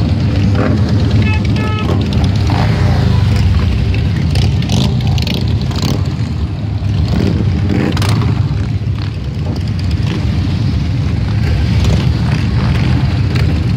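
Cruiser and touring motorcycles with V-twin engines riding past one after another at low speed, their engines running in a continuous deep, overlapping drone. A few short beeps sound about a second and a half in.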